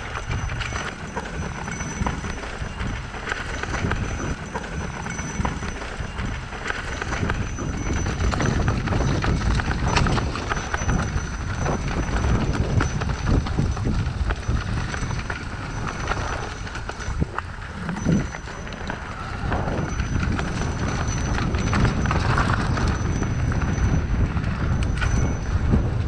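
Mountain bike descending a rough, rutted dirt trail: the tyres rumble over the ground and the bike rattles and clatters with many quick knocks as it runs over rocks and bumps.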